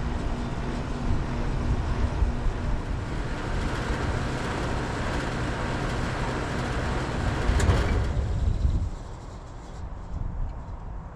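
2012 Lennox Elite XC14 5-ton central air conditioner condensing unit running with a steady hum from the compressor and condenser fan, then shutting down: a click about seven and a half seconds in, after which the running sound dies away within a second.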